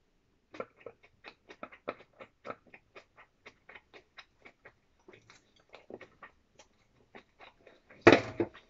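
Wooden chopsticks clicking and scraping against the inside of a clear plastic container, many quick light clicks at about three or four a second. Near the end comes one loud knock.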